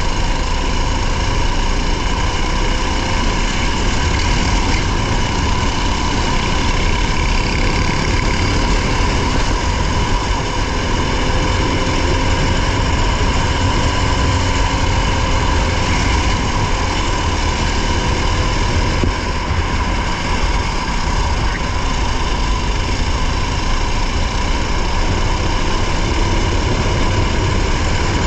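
Rally car engine running with a steady drone, heard from inside the car, with a strong low rumble.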